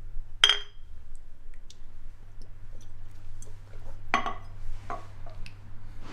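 Two glass beer bottles clink together in a toast, a single sharp ringing chink. About four seconds in comes a softer glassy knock, then a couple of light taps.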